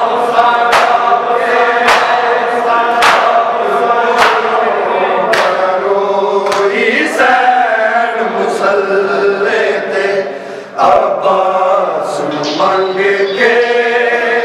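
Many men's voices chanting a Punjabi noha together, with the unison slaps of chest-beating matam landing about once a second. The beats are sharpest in the first half and fainter later.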